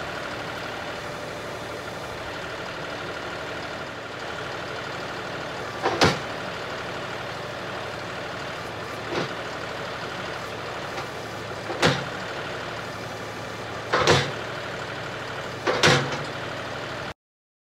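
John Deere 5045E tractor's three-cylinder diesel engine running steadily while the front-end loader dumps compost, with five sharp knocks spread over the second half as the tipped bucket is jerked to shake the load out. The sound cuts off suddenly near the end.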